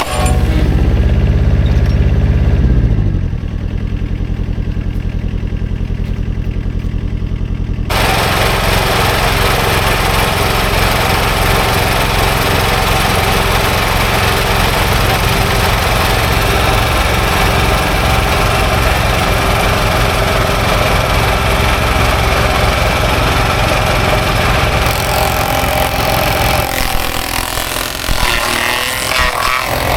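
Mini excavator engine running, loud at first with its pitch dropping over about three seconds, then settling to a steady run. A hissing noise across the higher pitches joins it suddenly about eight seconds in.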